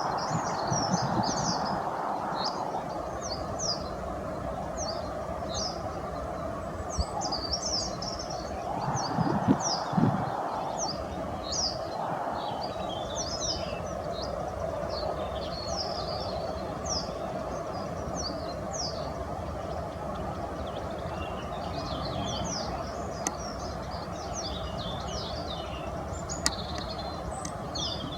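Songbirds chirping in quick, high, short notes, one after another, over a steady rushing background noise; a brief low sound comes about nine seconds in.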